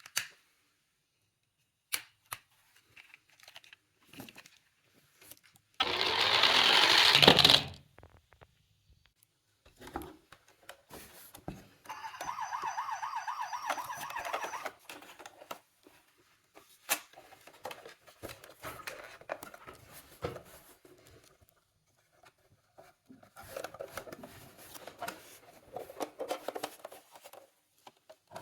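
Toy emergency-vehicle mini cars being handled, with scattered clicks and knocks. About six seconds in there is a loud rattling rush that swells for about a second and a half and then stops. Around twelve seconds in a toy's electronic siren warbles for about two and a half seconds, and more rattling follows near the end.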